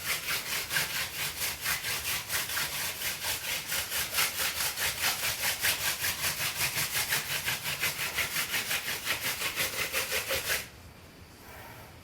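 Hand-drill fire making: a mullein-stalk spindle twirled back and forth between the palms grinds in the fireboard's socket, a fast, even rhythm of rasping friction strokes. This is the final hard drilling to form an ember, and it stops abruptly near the end once a coal has formed.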